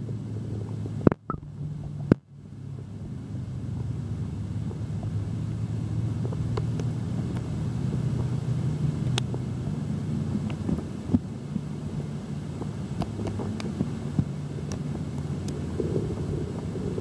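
Steady low underwater rumble and hum, heard muffled through a submerged camera's waterproof housing in river water, with faint scattered clicks. Two sharp clicks with brief gaps in the sound come about one and two seconds in.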